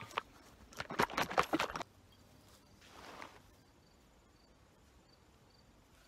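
A quick run of clicks and rustles from handling for about two seconds, then one short rustle around three seconds in. After that only faint outdoor background with a faint insect chirping at an even pace.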